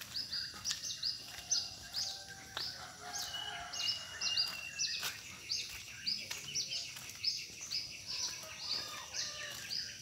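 Birds chirping: many short, high, overlapping notes repeating several times a second, over a thin steady high tone.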